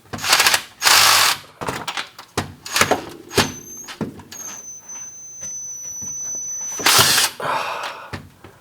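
Power drill run against a seized oil drain plug on a 1998 Honda Civic: short bursts of noisy clatter and a steady high-pitched whine held for a few seconds in the middle, the drill failing to break the plug loose.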